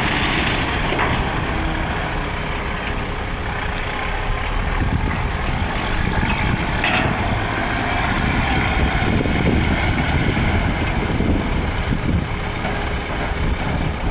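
A heavy vehicle such as a truck running, a steady, dense mechanical noise.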